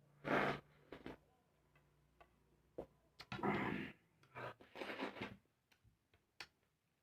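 Close-up eating sounds: sharp mouth or utensil clicks, with three short, louder noisy bursts of chewing or scraping.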